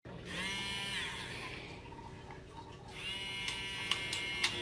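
Handheld battery milk frother whirring: its motor starts just after the beginning, drops in pitch and fades about a second in, then runs steadily again from about three seconds in. A few light clicks sound near the end.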